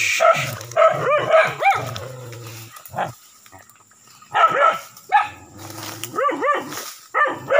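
Dogs barking and yelping in clusters of short, high barks, with a quieter lull about halfway through. They are barking at a large monitor lizard they have attacked and cornered.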